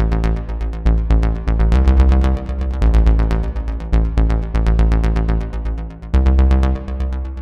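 Electronic music played on the D16 Lush 2 softsynth: a fast, even run of repeating synth notes over a held bass line that shifts pitch about once a second.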